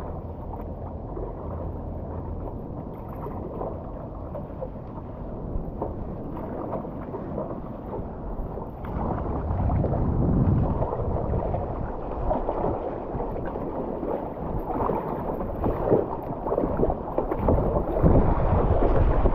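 Water rushing and splashing against a stand-up paddleboard as it is paddled, with wind on the microphone. It grows louder about nine seconds in and again near the end, as the board speeds along on a wave with spray at its nose.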